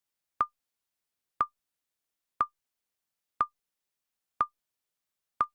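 Countdown timer ticking: six short, identical clock-like ticks, one each second, each a sharp click with a brief ping, and nothing heard between them.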